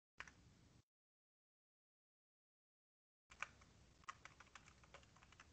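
Typing on a computer keyboard: a single key click just after the start, then a quick run of key presses from a little after three seconds in, with dead silence between.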